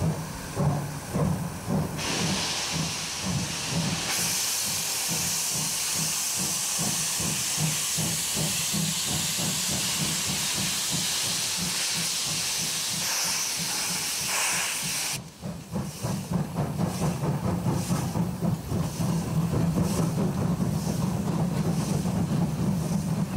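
Two class 52 steam locomotives: a few exhaust chuffs, then a loud steady hiss of escaping steam that cuts off suddenly about 15 seconds in, followed by a run of regular exhaust beats, about three a second, as the engines work.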